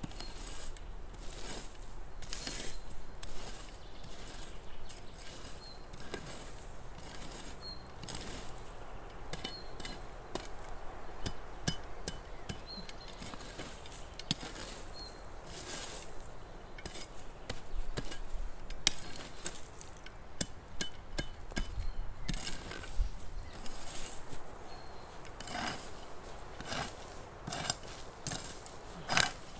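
Irregular light knocks and clicks, denser and louder near the end, over a steady hiss, with a faint short high chirp every second or two.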